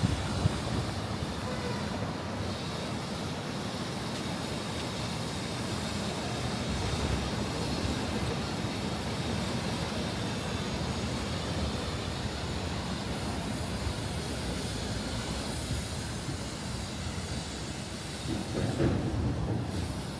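Steady city street noise, a continuous rumble and hiss of passing vehicles, with a louder low rumble near the end.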